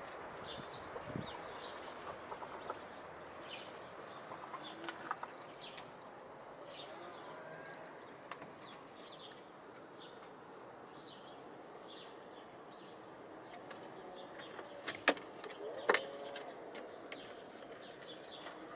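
Birds chirping in short, high notes repeating every half second or so, with faint calls from the hens. Two sharp knocks sound close together near the end.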